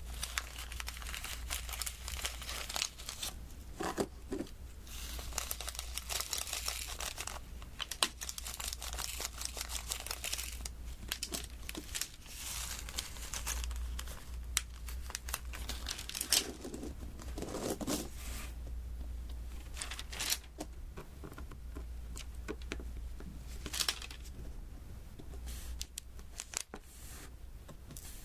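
Sticky crinkling and tearing sounds of plastic film on the adhesive diamond-painting canvas, with scattered sharp little clicks throughout, over a steady low hum.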